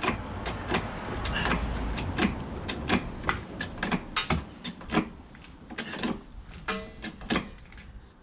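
A car jack being worked to lift the car: a run of mechanical clicks and knocks, about three a second, thinning out in the last few seconds.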